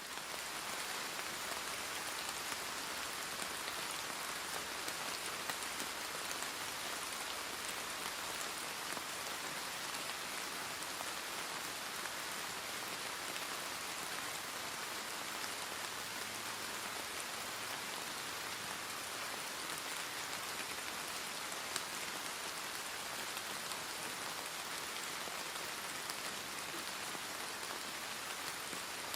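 Steady rain falling: an even hiss with a fine patter of drops and one slightly sharper drop about three-quarters of the way through.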